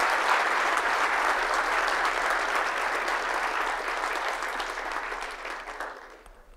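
Audience applauding, the clapping thinning and dying away near the end.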